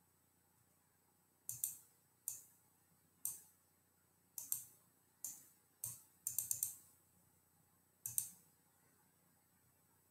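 Soft, scattered clicks on a computer, one or two at a time every second or so, with a quick run of four or five clicks about six seconds in.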